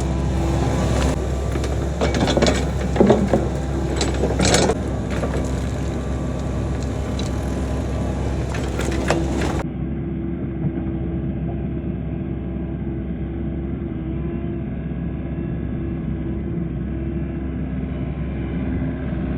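Midsize excavator's diesel engine running steadily, with the bucket crunching and cracking through dirt and rock during the first half.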